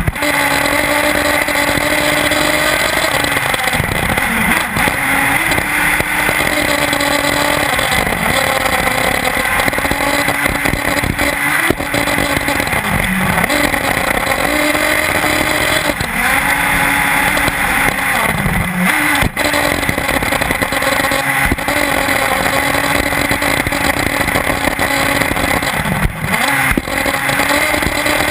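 Two-stroke nitro glow engine of an Intech BR-5 1/8-scale off-road buggy running at high revs close to the on-board camera. Its pitch dips briefly several times as the throttle is lifted, then climbs back as it accelerates again.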